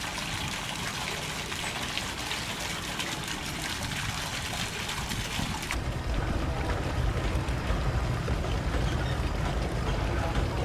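Water trickling and splashing from a stone spout into a footbath basin. About six seconds in it cuts off suddenly, and a louder low rumble takes over.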